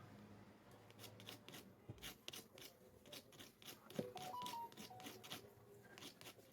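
Near silence with faint scattered clicks and taps of small tools handling the phone's circuit board while the old mouthpiece is being desoldered, and a brief faint whine about four seconds in.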